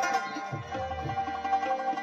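Instrumental background music: plucked strings over a steady held drone, with low drum beats.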